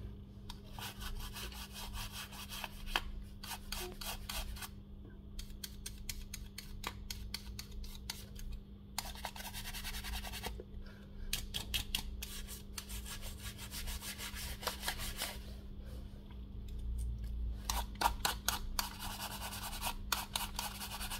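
A bristle brush sweeping over the opened back of a Samsung Galaxy A54 5G phone to clear dust before the back cover goes on. It makes quick scratchy strokes in several runs, separated by short pauses.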